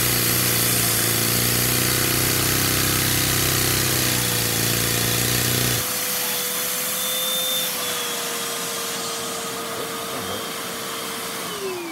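Lego vacuum-powered overhead-valve engine running fast in fourth gear with a lawnmower-like chug, over the steady whine and hiss of the vacuum cleaner that supplies its suction. About six seconds in the engine's chug stops suddenly as its timing gear comes loose and disconnects, leaving only the vacuum cleaner's whine. Near the end the vacuum motor winds down with a falling whine.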